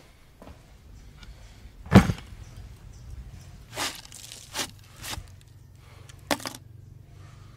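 A heavy thud on a wooden table about two seconds in, typical of a car battery being set down, followed by four lighter knocks.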